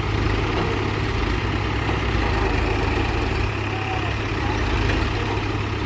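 Case 851EX backhoe loader's diesel engine running steadily at a low, even pace.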